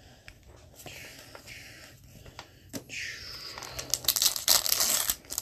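Soft sliding swishes of trading cards being handled, then loud crinkling of a hockey card pack wrapper from about four seconds in.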